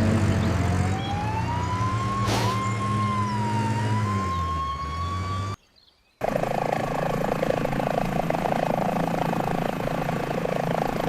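Emergency vehicle siren wailing slowly up and down over a running engine, with a short click about two seconds in. The siren and engine cut off suddenly about five and a half seconds in, and after a half-second of silence a steady rushing noise begins.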